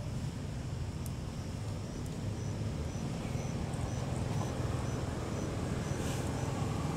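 Steady low rumble of outdoor background noise, with a faint high chirp repeating about twice a second through the middle and a few light clicks.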